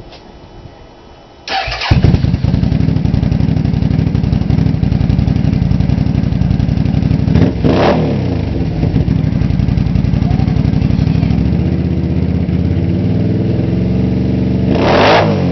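Can-Am Outlander 650 ATV's Rotax V-twin engine cranked and started about a second and a half in, then idling through its exhaust. It is blipped twice, the pitch rising and falling, about midway and near the end.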